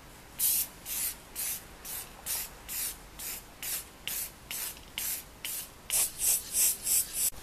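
Aerosol spray can of metallic silver primer spraying in short hisses, about two a second, quickening near the end.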